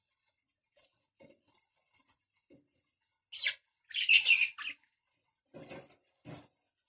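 Budgerigar chirping and chattering in short high bursts, with a louder run of chatter about four seconds in and two sharper calls near the end.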